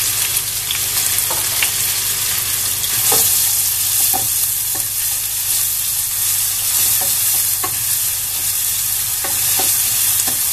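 Chopped onions frying in hot groundnut oil in a stainless steel pan, with a steady sizzle. A wooden spatula stirs them, scraping and knocking against the pan once or twice a second.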